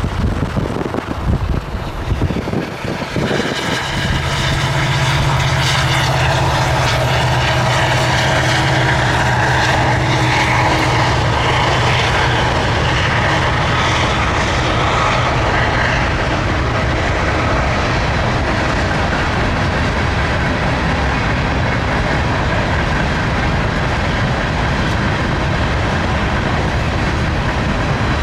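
Wind and road noise from a moving car for the first few seconds, then a passing freight train of tank cars and covered hoppers. The train gives a steady rumble and rattle of wheels on rail, with a low steady engine drone over it until about the middle.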